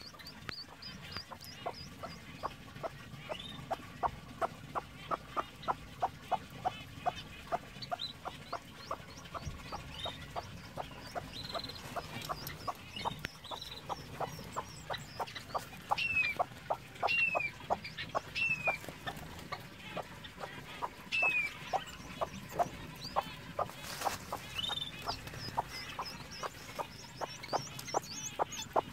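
Broody hen clucking steadily, about two to three low clucks a second, while golden pheasant chicks peep in short, high, falling notes; a few louder chick calls come in the middle. One brief sharp knock near the end.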